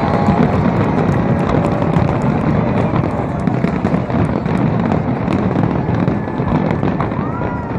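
Aerial fireworks going off in a dense, unbroken barrage, rapid bursts and crackling merging into a continuous loud rumble. A few thin whistling tones glide near the end.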